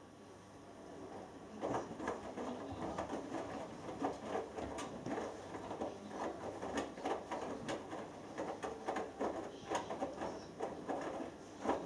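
Hoover Dynamic Next DXA610IW3 front-loading washing machine on its delicates wash, the drum turning and tumbling the wet laundry: an irregular patter of small splashes and soft knocks that starts about a second and a half in.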